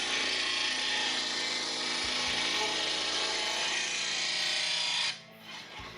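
RBG-2181P blade grinder's wheel grinding the edge of a steel lawn mower blade, a steady grinding hiss, as the second side is ground to sharpen and balance the blade. The grinding drops away about five seconds in.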